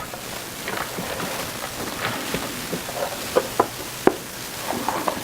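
Garlic butter sizzling as it melts in a hot saucepan, with a few sharp knocks in the second half.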